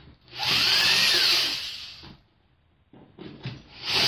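Power drill spinning a bit into wood in a short run of about a second and a half, its motor speeding up and then slowing. It starts again near the end.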